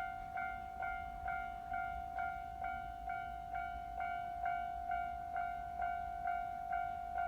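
Japanese railway level-crossing warning bell ringing steadily, a single electronic bell tone struck about twice a second.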